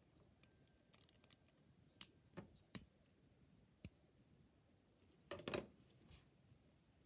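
Lego Technic plastic pieces clicking as they are handled: a few separate clicks, then a louder clatter about five and a half seconds in as the whip is set down on the plastic baseplate.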